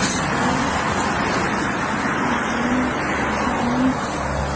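Steady roadside traffic and vehicle engine noise, with a low rumble coming in near the end.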